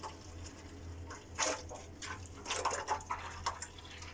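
Gear oil running out of or into a rear limited-slip differential in a steady trickle, part of repeated oil flushes meant to cure clutch-pack chatter. A low steady hum sits underneath, and a few short knocks come in the middle.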